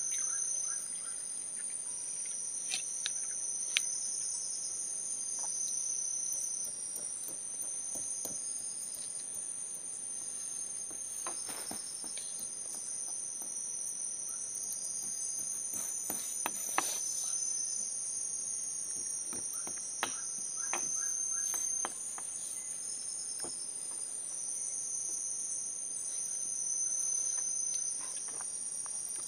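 Chorus of tropical forest insects: a steady high-pitched drone with pulsing trills that start and stop, and a few faint clicks and knocks scattered through it.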